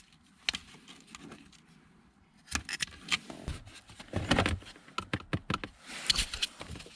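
Sharp clicks and clatter of small hard objects being handled, with a denser bout of rattling about four seconds in and more clicks near the end.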